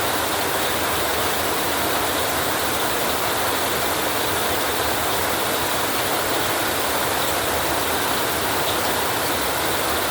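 Rain falling steadily on a tin roof: an even, unbroken hiss.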